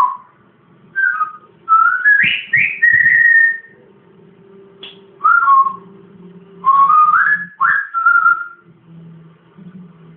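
Parrot whistling a run of short phrases of gliding notes that rise and fall, several notes to a phrase, with brief pauses between them.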